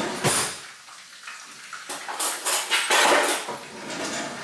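Kitchen dishes, cookware and utensils being handled, clattering and clinking in a few bursts. The busiest stretch comes in the second half.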